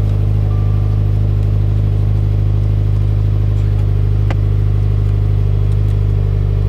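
2016 Subaru WRX's turbocharged flat-four engine idling steadily with a low, even drone, with a single short click about four seconds in.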